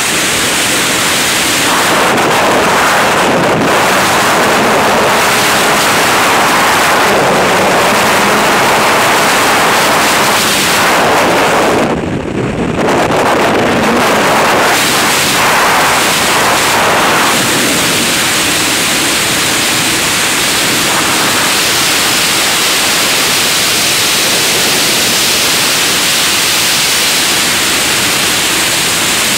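Skydiving freefall: loud, steady rush of wind buffeting the camera's microphone, with a brief lull about twelve seconds in.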